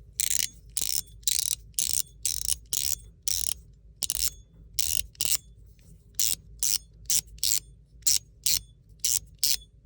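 Metal fidget slider with a ball-detent track slid back and forth, giving short, sharp detent clicks with a faint ringing ping, irregular at roughly two to three a second.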